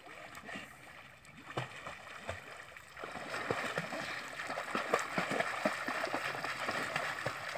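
Water splashing and churning as several boys swim and dive in a shallow canal, light at first, then a steady run of close splashes from about three seconds in.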